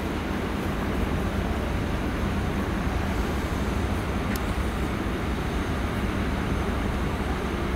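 Steady low rumble on the open deck of a ferry under way: the hum of the ship's engines and machinery under wind buffeting the microphone.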